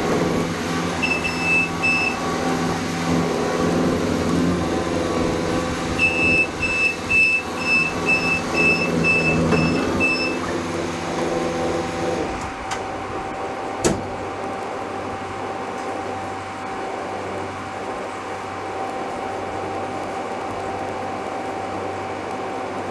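Skid steer loader working with its diesel engine running, its reverse alarm beeping in short runs: three beeps about a second in, then about nine at two a second. The engine shuts off about twelve seconds in, a sharp clack follows a couple of seconds later, and a steady, quieter engine hum carries on after that.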